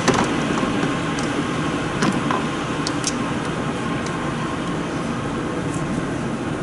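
Steady background hum with a few sharp clicks and taps of hand tools working on the engine, the strongest right at the start and a cluster around two to three seconds in.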